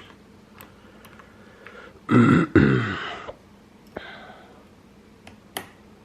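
A person's short wordless vocal sound, about two seconds in and lasting about a second, with faint clicks of lock picking tools against a padlock before and after it.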